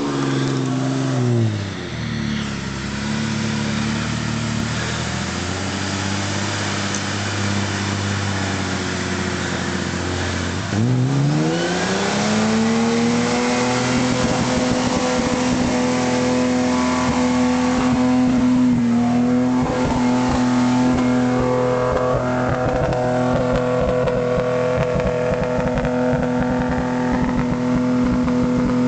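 Off-road four-wheel-drive engine working under load. Its revs fall about a second and a half in and run low and steady, then climb around eleven seconds in and are held high and steady, with a rough crackle underneath.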